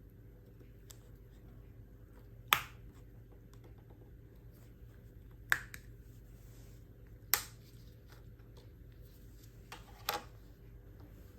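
Plastic clicks and snaps of a 2021 MG Extender key fob being handled and taken apart: four sharp clicks a few seconds apart, with faint small ticks between.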